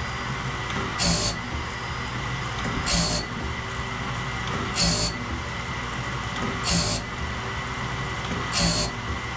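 Wood-Mizer BMS250 bandsaw blade sharpener running steadily, with a short hissing grind about every two seconds, one for each tooth it indexes to and grinds. Five of these strokes come at an even pace.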